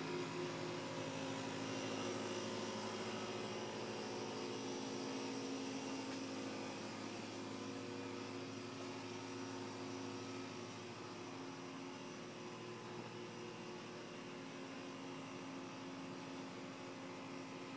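Steady machine hum with several steady tones over a low noise, growing slightly quieter about halfway through.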